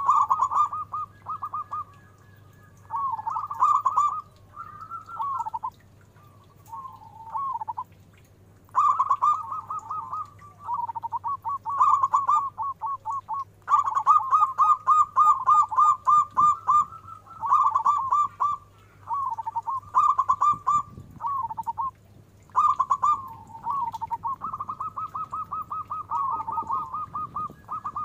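Zebra dove (perkutut) cooing: phrases of fast, rolling, pulsed coos, each one to a few seconds long with short gaps, repeated again and again. The voice is deep and full, the 'big voice' that local perkutut keepers prize. A faint steady low hum runs underneath.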